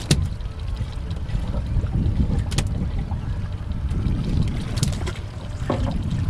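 Wind buffeting the microphone and water lapping against a small fishing boat's hull, making a steady low rumble. Three sharp knocks are spread through it.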